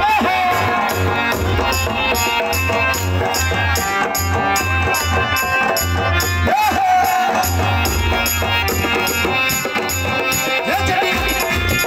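Live amplified folk music for a Kud dance, played through loudspeakers: a steady drum beat with a rattling shaker on the beat, and a male singer's voice coming in over it at moments.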